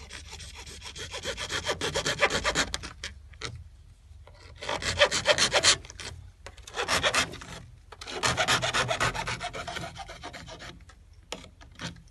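A hand saw cutting with rapid rasping strokes, in four bouts separated by short pauses.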